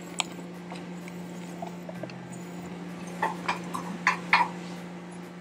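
A wooden spoon knocking and scraping against a glass bowl as flour is tipped into a ceramic mixing bowl: one click just after the start, then about six quick knocks about three seconds in, over a steady low hum.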